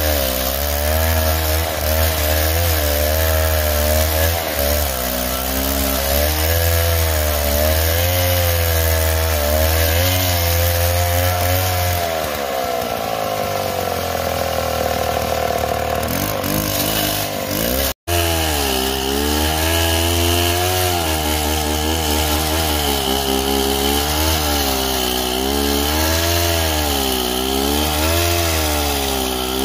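Two-stroke chainsaw ripping lengthwise along a log under load, its engine pitch wavering as the chain bites. For a few seconds past the middle it runs lighter, with a smoother sliding pitch. It drops out for an instant about two thirds of the way through, then carries on cutting.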